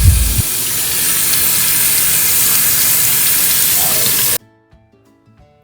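Tap water running into a sink for hand-washing: a steady rush that cuts off suddenly about four seconds in. Faint background music follows.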